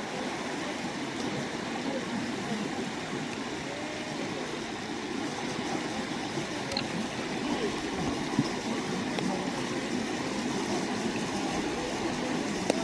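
A stream running, the water's sound steady throughout, with a single small click about eight seconds in.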